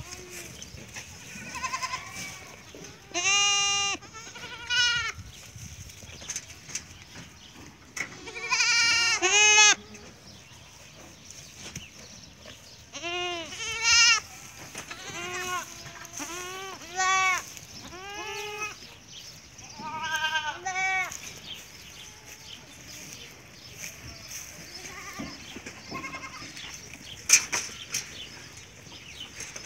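Goats bleating on and off, about a dozen calls, some long and quavering, often two or three in quick succession. A sharp click sounds near the end.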